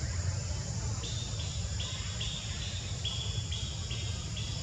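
Outdoor ambience: a steady high insect hiss over a low rumble, joined about a second in by a run of about eight short, evenly spaced high chirps, a little over two a second.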